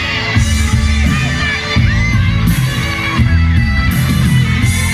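Loud music with a heavy bass beat and sung or played melody.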